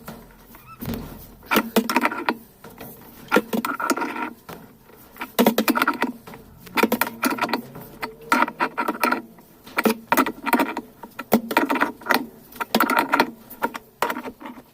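Repeated irregular clinking and rattling of tools and metal parts being handled during washing-machine disassembly.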